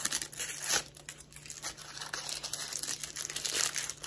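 Aluminium foil wrapper crinkling and tearing as it is peeled by hand off a giant chocolate shell, in irregular crackles.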